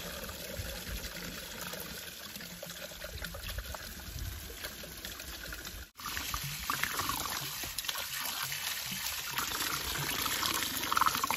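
Water trickling and pouring steadily in and around an emptied propane tank that is being flushed with water to drive out the leftover propane gas. It breaks off for a moment about halfway through, then carries on.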